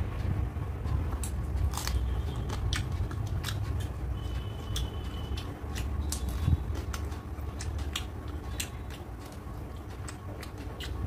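Close-up mouth sounds of a person eating rice and curry: chewing with scattered wet clicks and smacks, over a steady low rumble.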